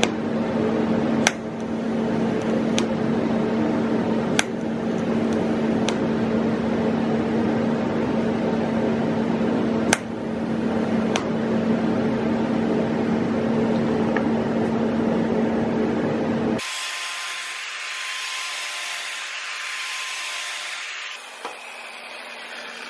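Power tool running steadily with a humming tone, broken by a few sharp clicks. About 16 seconds in it gives way to a quieter, hissy rubbing of abrasive on metal.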